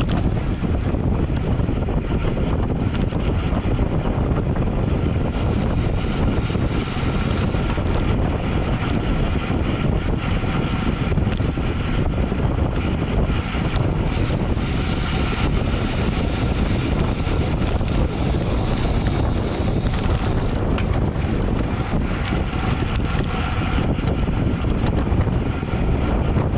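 Steady, loud wind rushing over the microphone of a camera riding along on a road bike at race speed.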